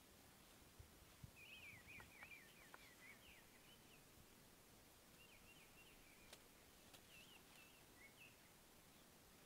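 Faint birdsong: quick, warbling chirps in short runs, about a second in and again around the middle, with a couple of faint clicks.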